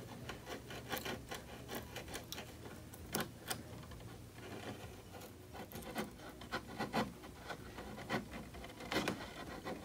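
Chisel paring wood by hand, pushed without a mallet, to level the floor of a butt-hinge mortise. Faint, irregular scraping with small clicks as the blade lifts thin shavings, a few strokes louder than the rest.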